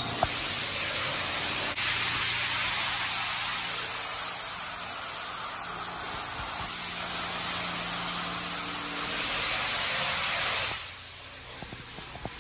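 High-pressure water spraying in a Mark VII SoftTouch XT in-bay automatic car wash, a steady loud hiss that cuts off sharply about eleven seconds in, leaving only light splashing and dripping.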